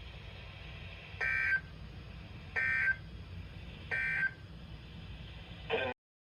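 Emergency Alert System SAME end-of-message data bursts: three short, identical two-tone warbling bursts about 1.4 seconds apart, marking the end of a severe thunderstorm warning, over a faint hum and hiss. A brief blip follows, then the audio cuts off to silence near the end.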